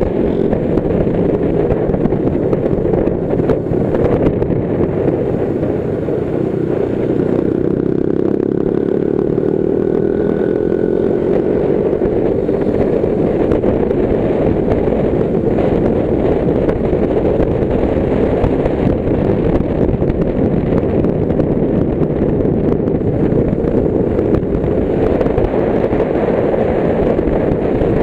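Motorcycle engine running at road speed under heavy wind rumble on the microphone. The engine's pitch climbs steadily for several seconds as the bike accelerates, about a quarter of the way in.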